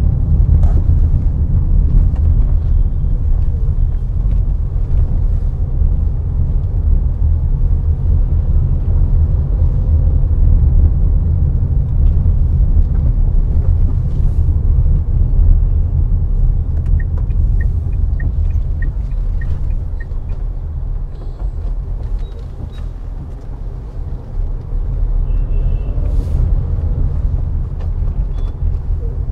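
Steady low rumble of a car driving on city roads, made of engine, tyre and wind noise, easing a little about three-quarters of the way through. A run of about seven short high beeps, about two a second, comes a little past the middle.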